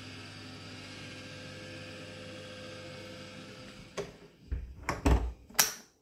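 A steady hum with a few faint fixed tones. About four seconds in it gives way to a quick run of knocks and heavy clunks as a door is handled and shut, and these stop abruptly.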